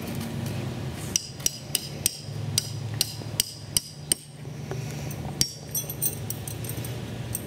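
Tent stakes being hammered into the ground: about a dozen sharp, ringing taps at an uneven pace, starting about a second in.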